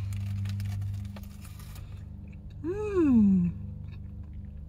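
A woman chewing a mouthful of breakfast burrito, then a long appreciative "mmm" about three seconds in that slides down in pitch, over a steady low hum.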